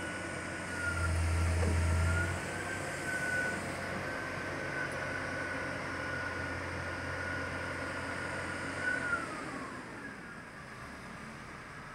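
Bauer BG 28 rotary drilling rig's engine and hydraulics running: a low hum under a steady high whine. About nine seconds in the whine slides down in pitch and the sound gets quieter.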